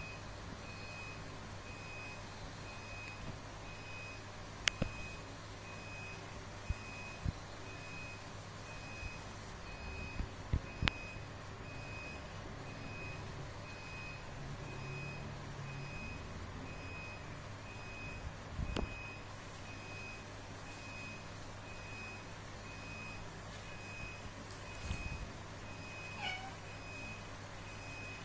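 Cats scuffling at play, with a few sharp knocks and one short meow near the end. A high electronic beep repeats at an even pace through most of it, like a vehicle's reversing alarm.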